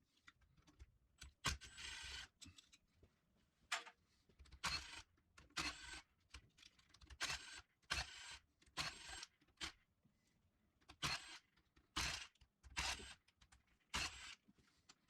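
Hand tools and metal parts being worked on a 4L60E automatic transmission during teardown, heard as faint short bursts of clatter about once a second.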